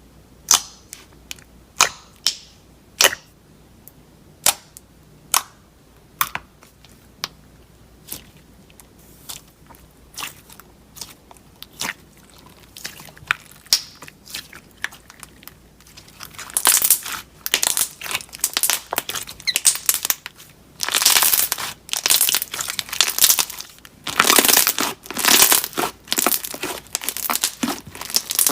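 Slime being played with by hand: sharp pops and clicks at first, about one a second and growing fainter. From about halfway through comes a dense crinkly crackling in bursts.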